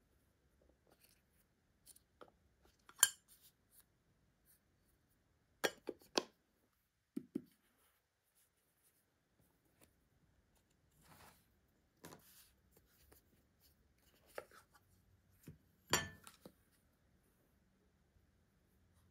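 A plastic IKEA STYRBAR remote and its plastic back plate being handled on a tabletop: scattered sharp plastic clicks and taps, the loudest about three seconds in and about sixteen seconds in, with a brief soft rustle of a paper leaflet around the middle.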